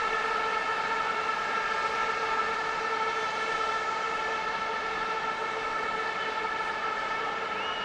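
A steady, unwavering tone with overtones held over the noise of a stadium crowd.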